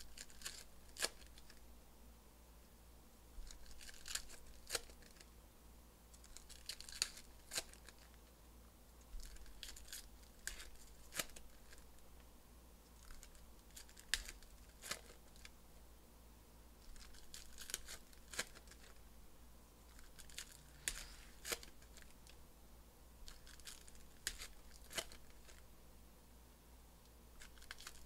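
Sports card packs being torn open and the cards handled: crinkling, tearing wrappers and sharp card clicks, coming in short clusters every few seconds.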